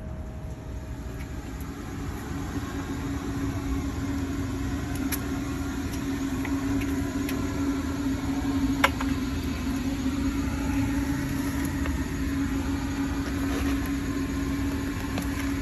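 An engine running steadily at an even pitch, getting a little louder about two seconds in. One sharp clank about nine seconds in.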